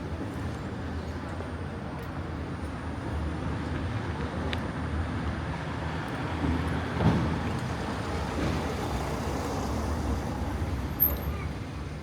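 Street traffic noise: a steady low rumble that swells about halfway through as a vehicle goes by, with a brief sharp sound near the end.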